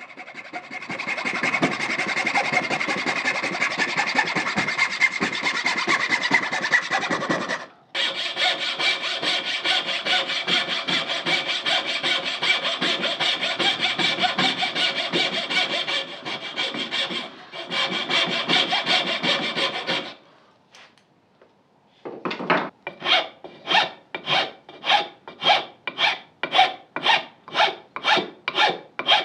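Hand-tool work on wood: a coping saw cutting out rough curved trim patterns and a file smoothing them. Fast, continuous strokes run for most of the time, then after a short pause about twenty seconds in come slower, separate strokes about two a second.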